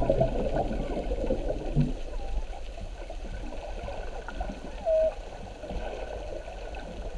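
Underwater water noise heard through a submerged camera: a steady low rumble with gurgling and sloshing. A few short, bubble-like pitched squeaks come through, the loudest about five seconds in.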